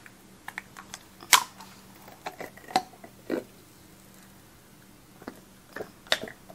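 Thin silicone candle-holder mold being peeled and flexed off a cured epoxy resin piece by hand: scattered light clicks and taps, with a few sharper ones about a second in, around three seconds, and near the end.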